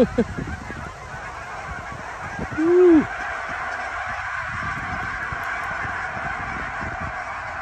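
A large flock of geese honking in a dense, continuous chorus of many overlapping calls as it takes flight, with one louder rising-and-falling call about three seconds in.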